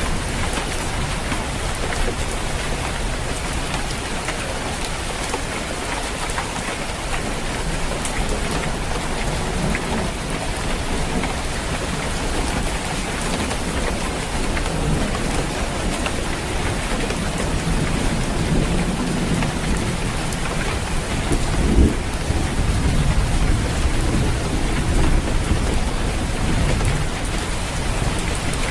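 Steady heavy rain falling on a roof, with low rumbles of thunder in the second half and one sharper thunderclap about three-quarters of the way through.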